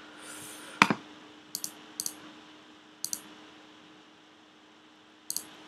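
Computer mouse clicking: about five sharp clicks, most in quick press-and-release pairs, over a faint steady hum.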